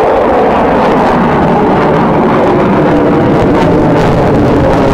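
Su-57 fighter jet's engines at high power, a loud steady jet roar as the aircraft maneuvers overhead.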